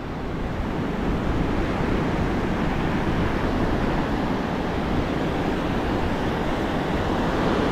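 Ocean surf breaking and washing up a sand beach, a steady rushing noise with a low rumble, with wind on the microphone.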